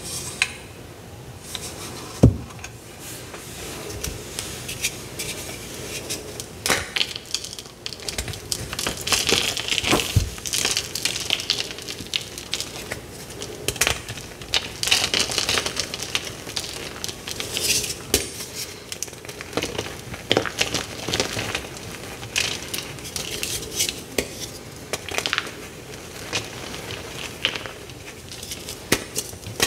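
Dyed gym chalk blocks crushed and crumbled by hand, crunching and crackling as pieces and powder fall onto a metal tray, with a sharp knock about two seconds in.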